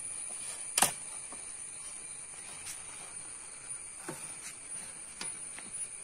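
A banana leaf being laid over idli batter and pressed down inside an aluminium steamer pot: one sharp click a little under a second in, then a few fainter crinkles and taps. Under it all runs a steady high insect trill.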